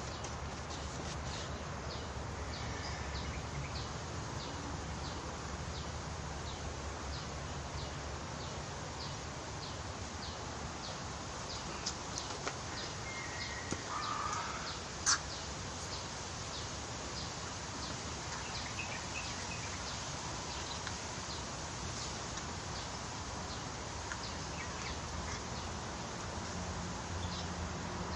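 Outdoor ambience: a steady low hum with a short, high call repeating over and over, about once or twice a second, plausibly a bird. About halfway through comes a brief louder chirp, then a single sharp click.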